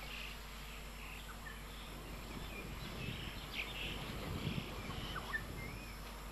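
Wild birds chirping and calling in short whistles and twitters over a steady background hiss, with a low rumbling noise swelling for a few seconds in the middle.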